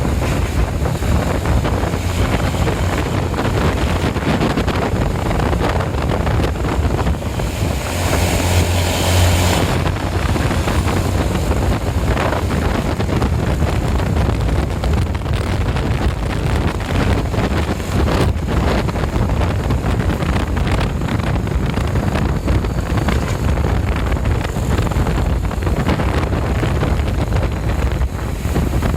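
Tour bus engines running and moving past, a steady low rumble with wind buffeting the microphone, swelling louder about eight to nine seconds in. No horn melody sounds.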